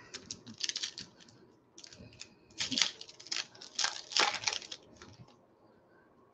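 Foil wrapper of a Panini Contenders baseball card pack being torn open and crinkled. It comes in several bursts of crackling and stops about five seconds in.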